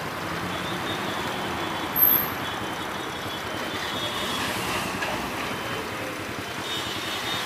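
Steady street traffic noise, with one brief sharp, very high-pitched sound about two seconds in.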